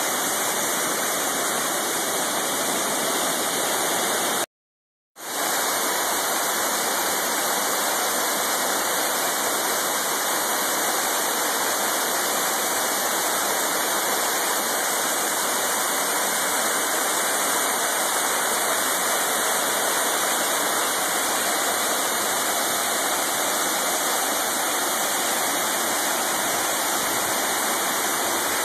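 Waterfall rushing steadily, an even wash of falling water; the sound cuts out completely for under a second about four and a half seconds in, then resumes just as before.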